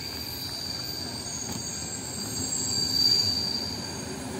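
Passenger train rolling into the station and braking, its rumble overlaid by a steady high-pitched squeal that grows loudest about three seconds in.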